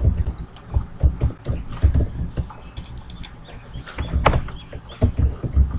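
Irregular soft thumps and clicks from a computer keyboard and mouse being worked close to the microphone, about two to three a second.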